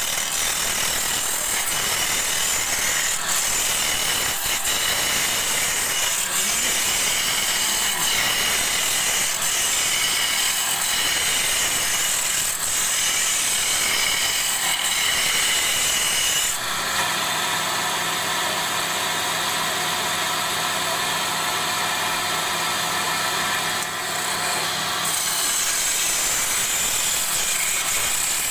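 Wooden hammer handle spinning on a lathe while it is worked by hand: a steady rasping hiss of wood being cut and smoothed. For several seconds in the middle this is replaced by a steady droning hum made of many tones, which starts and stops abruptly.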